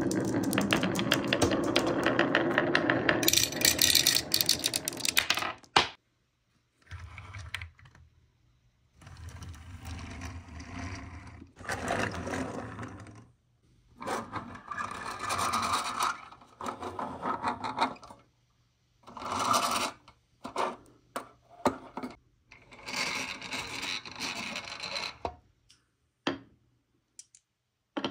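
Glass marbles rolling and clattering down a wavy wooden HABA slope: a dense, loud run of clicks and rumbling for about six seconds. Then shorter separate spells of rolling and clicking follow, with short pauses between them.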